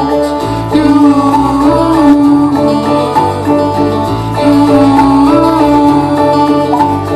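Live indie-pop band playing: acoustic guitar, electric guitars, bass guitar, keyboards and drums, with a sustained lead melody that slides between notes over a steady bass line.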